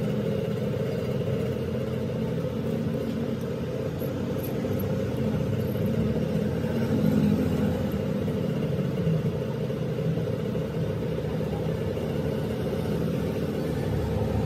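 Steady low mechanical drone of a running machine, several held low tones with a rumble underneath.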